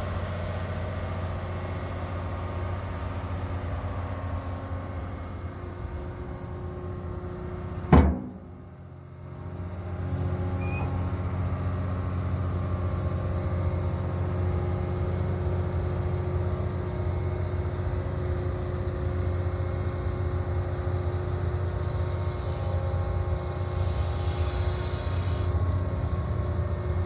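Excavator's diesel engine running steadily while the machine is walked off a low bed trailer. A single sharp knock about eight seconds in is the loudest sound, followed by a second or two of quieter running.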